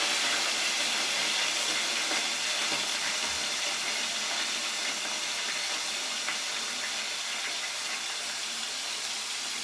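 Chicken pieces pan-searing in hot olive and vegetable oil: a steady sizzle that slowly eases off.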